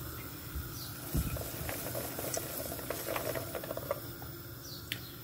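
Caramel-coated popcorn in a cast-iron pot crackling and rustling over a steady hiss, with a soft knock about a second in; the ticks are densest in the middle and thin out near the end.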